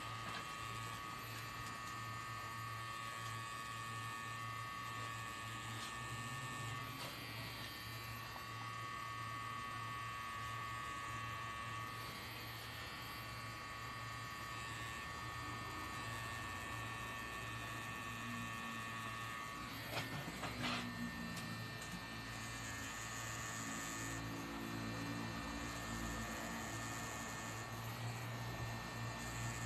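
Rotary pen tattoo machine running with a steady electric hum as the needle works the skin. A few short clicks come about two-thirds of the way through.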